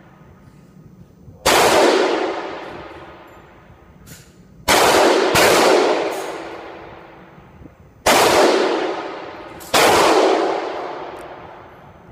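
Glock 19 9mm pistol fired five times: single shots about a second and a half in, a quick pair a little before the middle, then two more shots, each bang followed by a long echo tail in the indoor range.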